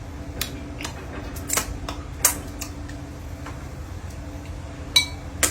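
Cutlery clicking against a plate now and then, about seven sharp clicks at uneven intervals, over a steady low hum.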